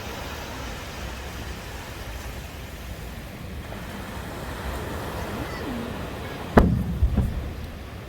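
A firework shell bursting with one sharp, loud boom about six and a half seconds in, followed by a short rumbling echo. Before it there is a steady low rumble.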